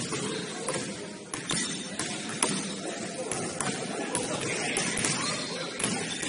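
Basketball game in a gym: the ball bouncing and thudding on the court several times, among indistinct players' voices echoing in the hall.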